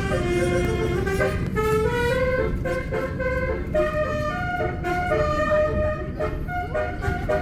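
Bus 'telolet' horn, a multi-tone air horn, playing a tune of quick stepped notes, with a steady low rumble underneath.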